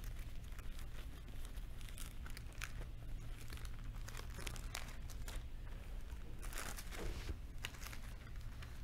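Thin Bible pages being leafed through by hand: soft paper rustling and crinkling, several separate page-turns scattered through, over a low steady hum.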